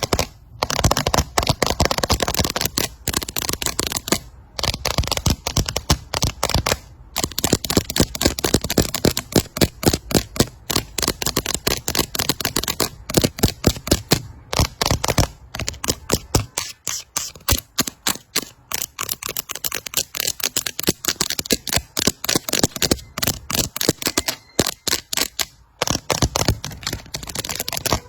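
Fast ASMR tapping: quick, sharp taps several times a second in an almost unbroken run, with a few brief pauses.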